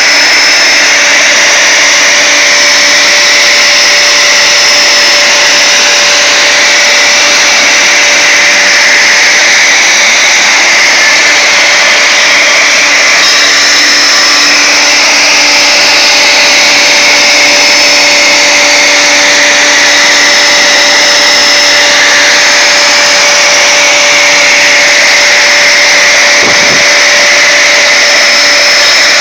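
CNC router spindle running steadily at high speed with an even, high whine, a small ball-nose bit cutting wood on a finishing pass.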